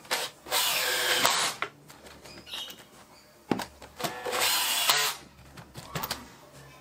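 Makita cordless drill with a pocket-hole step bit boring through a pocket-hole jig into a reclaimed bed-slat board, with a steady motor whine. It runs in two bursts: one just after the start and one about three and a half seconds in.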